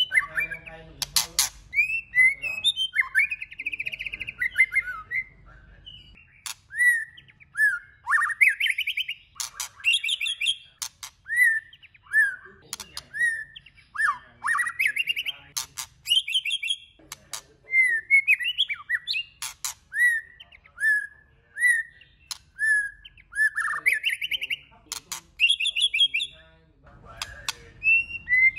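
White-rumped shama singing a varied song of short whistled phrases, slurred up- and down-sliding notes and rapid warbles, each phrase different from the last. Sharp clicks sound between the phrases.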